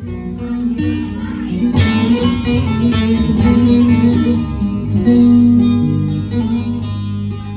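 Instrumental break in a Turkish folk song: plucked string instruments play a busy melody over steady low held notes. The playing gets fuller and louder about two seconds in.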